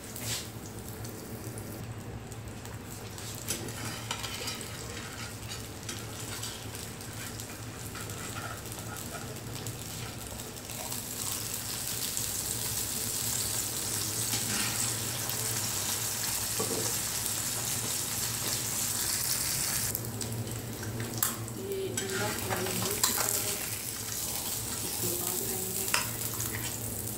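Eggs frying in oil on a hot flat griddle (tawa): a steady sizzle that grows louder after about a third of the way in and drops back about two-thirds in. Near the end come a few clicks and scrapes of a metal spatula on the pan as the eggs are lifted out.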